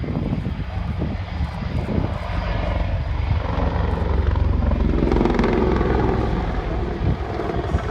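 Apache attack helicopter in flight: a steady low rotor rumble with the whine of its Turbomeca turboshaft engines, growing louder to a peak about five seconds in as it passes closest, then easing off.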